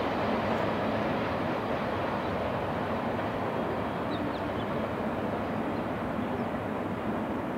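Double-stack intermodal freight train rolling away, its cars' wheels on the rails making a steady rumbling noise that slowly fades.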